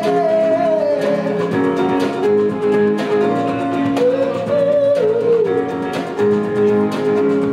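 A male voice singing long held notes over a strummed acoustic guitar; the first held note slides down about a second in, and another bends up and then down between about four and five and a half seconds.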